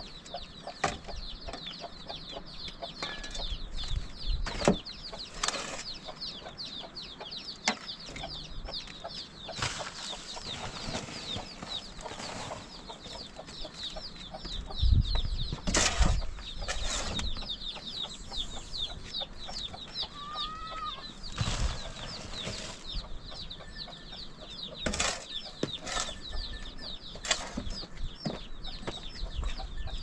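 A steel shovel scraping soil out of a metal wheelbarrow and dumping it, a dozen or so separate scrapes and knocks, the loudest about halfway through. Underneath, a steady chorus of rapid high bird chirps.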